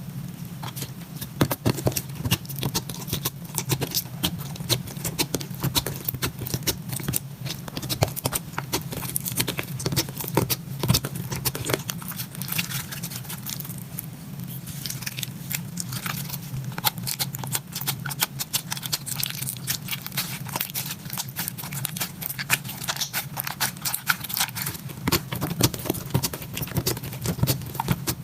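Glitter slime being squished and stretched by hand: a dense run of wet clicks, crackles and small pops from air pockets bursting in the slime, over a steady low hum.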